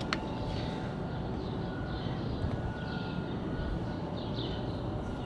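Birds chirping over a steady low outdoor background hum, with a single sharp click just after the start.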